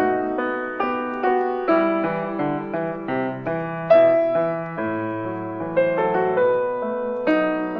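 Piano music: a calm melody of struck notes, each fading away, coming about two a second over lower notes.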